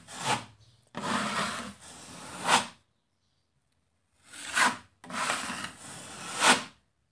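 Wide drywall knife scraping across wet joint compound as the edges of a patch are feathered out. There are about four strokes, two short and two long, each getting louder as it finishes, with a pause of over a second in the middle.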